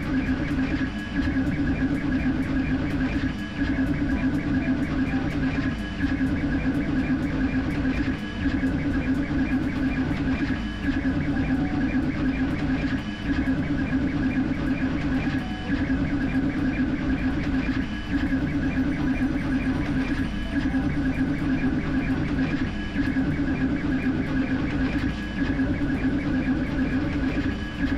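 Creality K1C 3D printer printing at high speed, its toolhead moving rapidly back and forth with a steady motor whine. The sound dips briefly about every two and a half seconds.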